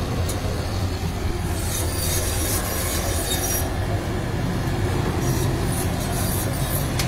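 Heavy machinery engine running steadily with a continuous low hum. A burst of hissing noise comes in about one and a half seconds in and lasts about two seconds.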